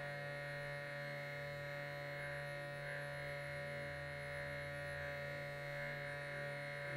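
Quiet steady electrical hum, a low drone with a ladder of fixed higher tones and a thin high whine over it, unchanging throughout.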